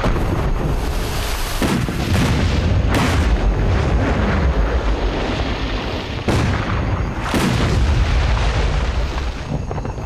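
A series of explosions from charges rigged in a camp, about six blasts going off one after another over a continuous deep rumble.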